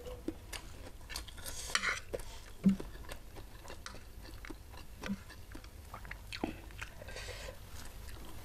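Close-up chewing and wet mouth clicks of a person eating rice with crispy fried anchovy sambal, with many short sharp clicks and a soft thump a few seconds in, and a metal spoon scraping a plate.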